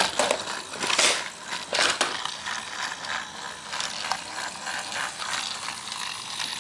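Battery-powered TrackMaster Thomas toy engine running along plastic track: a steady rattling, clicking whir of its small motor and gears and its wheels on the track. There are a couple of louder clatters about one and two seconds in.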